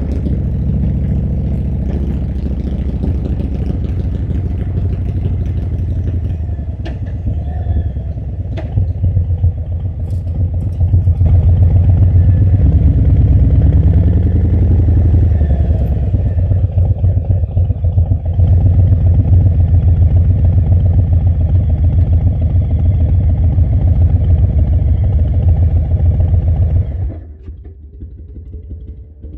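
Harley-Davidson V-twin motorcycle engine running under way with a rapid low pulsing, getting louder as the throttle opens about a third of the way in. The sound drops away suddenly near the end.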